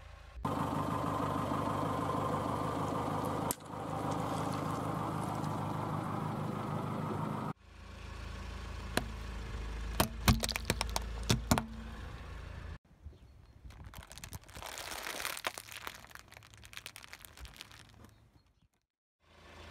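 Car engine running with tyre noise as the car creeps forward over objects, in short segments that cut abruptly. About halfway through, a cluster of sharp cracks as a plastic Rubik's cube breaks under the tyre, then crackling as a plastic candy bag is pressed under the tyre.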